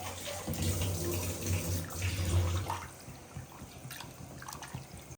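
Chicken curry bubbling at the boil in a pot, with a wavering low rumble that drops off about three seconds in, leaving fainter bubbling and small clicks.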